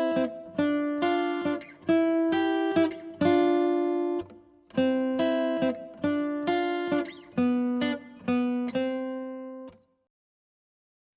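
Background music: a plucked acoustic guitar tune of single notes that strike and fade, which stops about a second before the end.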